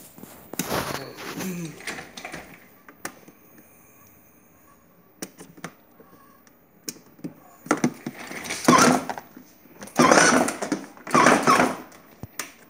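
Plastic clicks from handling the dashboard and steering-wheel area of a battery-powered children's ride-on car, followed in the second half by about three loud, noisy bursts of about a second each.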